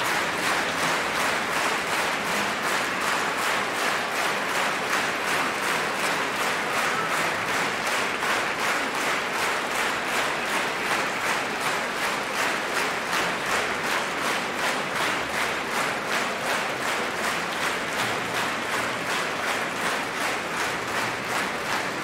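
Large concert audience applauding, the clapping falling into a steady rhythm in unison.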